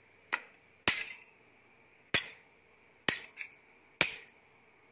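A stick striking toys on the ground: six sharp cracks, roughly a second apart, with two in quick succession near the middle.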